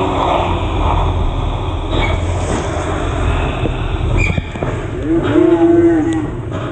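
Heavy truck's diesel engine running low and steady as the loaded multi-axle truck reverses on the bend. In the second half, a man gives two long shouted calls.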